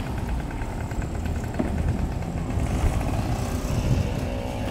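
Street traffic with a motorcycle engine running close by.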